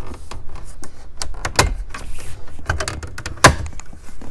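Plastic clips of a Chevy Trailblazer's dash bezel snapping and the trim creaking and rattling as it is pried loose with a plastic panel tool: a string of irregular sharp clicks and snaps, the loudest about three and a half seconds in.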